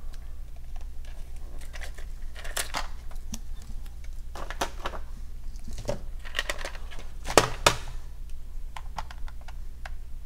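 Irregular plastic clicks and clacks as a small precision screwdriver set's hard plastic case is handled and opened and a screwdriver taken out, with the loudest pair of clacks a little past the middle. A steady low hum lies underneath.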